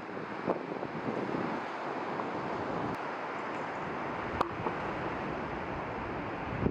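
Steady outdoor wind noise, an even rushing hiss buffeting the microphone, with a sharp tick about four seconds in.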